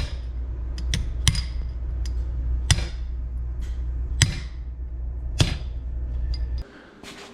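Hammer striking metal: about six separate ringing blows at uneven intervals, over a steady low hum that cuts off near the end.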